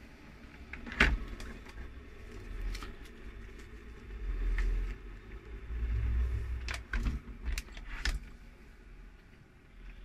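Handling noises on a pod coffee machine: a sharp knock about a second in, then low bumps and a quick run of plastic clicks and clacks as a coffee pad is seated in the holder and the lid is shut.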